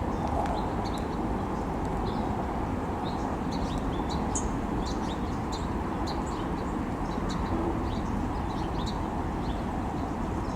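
Many small birds chirping in short, high, scattered notes over a steady low rumble.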